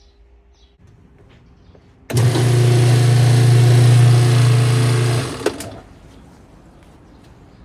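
Whirlpool washing machine running with a loud, steady hum and hiss that starts suddenly about two seconds in and stops about three seconds later, followed by a single click.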